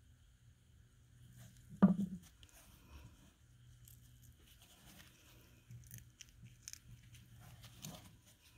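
A metal pommel cap knocks down once onto a wooden bench about two seconds in. Faint crackling and scraping follow as gloved hands work the old, split wooden grip loose from the knife's tang.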